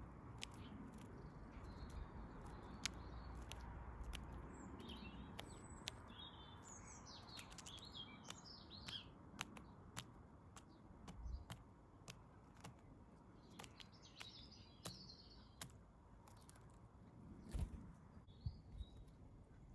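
Small garden birds chirping in short, faint clusters of high chirps, with many scattered sharp ticks and taps and a couple of louder knocks near the end.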